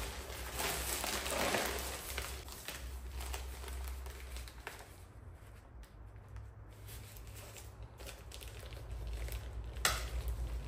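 Plastic vacuum-bag film crinkling and rustling as it is spread over a mould and pressed down by hand. It is loudest in the first couple of seconds and quieter from about five seconds in, with a sharp click near the end.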